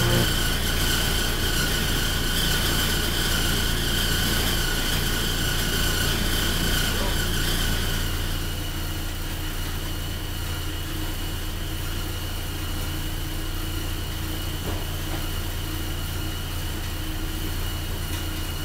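Steady laundromat machine noise, washers or dryers running, with a low hum and a thin high whine. It drops a little in level about eight seconds in.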